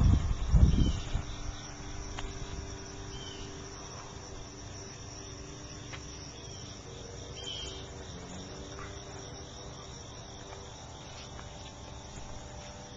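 Steady chirring of insects such as crickets, with a few low rumbling thumps in the first second.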